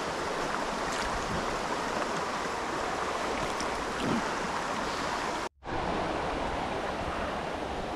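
Mountain river rushing steadily, broken by a brief gap of silence about five and a half seconds in.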